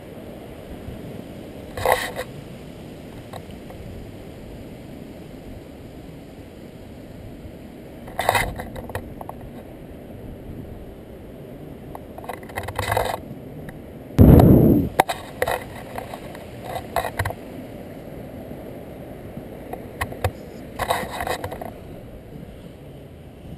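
Inline skate wheels rolling over concrete pavement with a steady low rumble. It is broken by several short scraping clatters and, a little past halfway, one loud low rumble lasting under a second.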